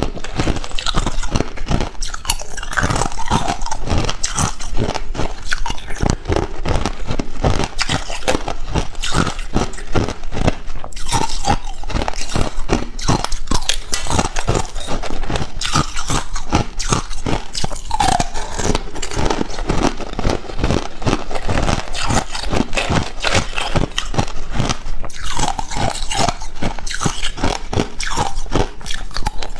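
A person biting and chewing hard ice cubes close to the microphone, with rapid, continuous crunching and cracking of the ice between the teeth.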